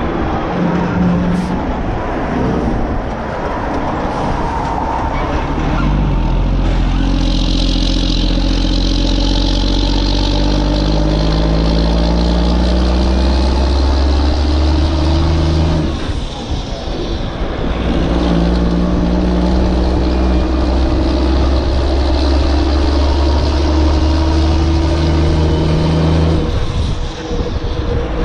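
Truck engine sound effect running steadily with a deep hum, its note shifting a few times, with short dips in loudness about halfway through and near the end.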